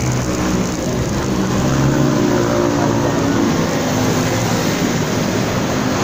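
Bajaj Pulsar 220 motorcycle's single-cylinder engine running at low road speed, its note shifting in pitch, with road and wind noise over the microphone.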